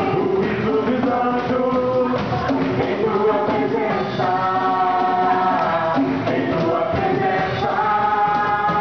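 Gospel music with a group of voices singing together, holding long notes over the band.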